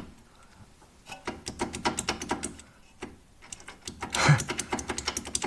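Rapid runs of small metallic clicks and light knocks from hand tools working at a car's lower ball joint, with one louder knock about four seconds in.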